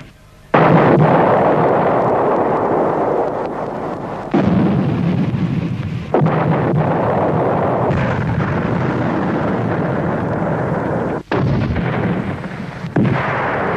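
Artillery barrage: heavy shell blasts, about four sudden ones, each followed by a long rolling rumble that runs into the next.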